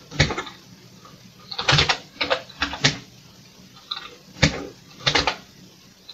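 Keys of a Commodore VIC-20 keyboard being typed: several short, irregular clacks, some in quick pairs, with pauses between.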